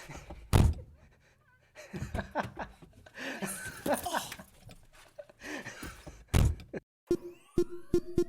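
Two heavy thumps about six seconds apart, with a woman's agitated voice in between and a fast run of clicks near the end.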